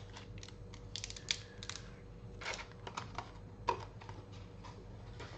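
Small model-kit parts, plastic pieces and metal springs, being handled and set down: a run of irregular light clicks and taps, some in quick little clusters.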